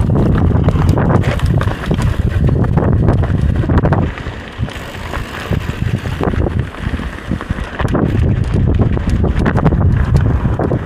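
Heavy wind buffeting the microphone on a moving mountain bike, with the clicks and rattles of the bike over the trail. The wind eases for a few seconds in the middle, then picks up again.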